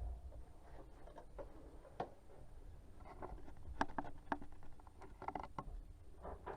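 Scattered light clicks and taps from handling, with a low rumble at the start.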